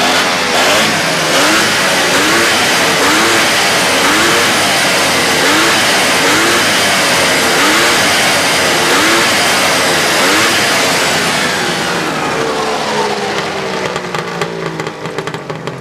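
1999 Arctic Cat ZRT 800 snowmobile's three-cylinder two-stroke engine, running loud through its exhaust can, revved in repeated throttle blips about once a second. Near the end the revs fall away toward idle.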